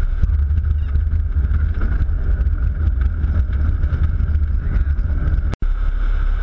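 Light aircraft's cabin noise with the engine throttled back to idle for a practice dead-stick landing, and a steady low rumble as the plane rolls out on the runway. The sound drops out for an instant about five and a half seconds in.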